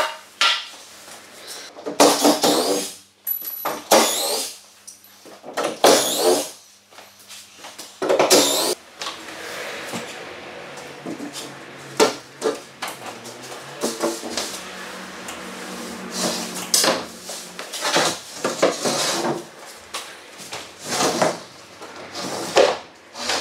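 Timber battens and OSB boarding being handled and pulled down off a wall: irregular knocks, clatters and scrapes of wood, some with a squeak.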